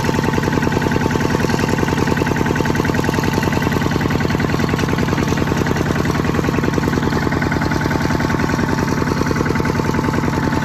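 Kubota RT140 single-cylinder diesel engine of a two-wheel walking tractor running steadily under way, with a rapid, even chugging beat.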